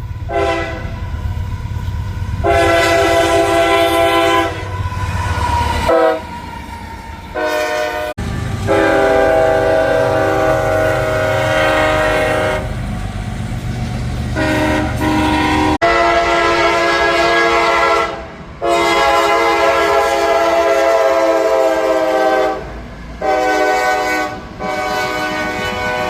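Locomotive air horn sounding a series of long and short blasts over the low rumble of a passing train, breaking off abruptly a couple of times between clips.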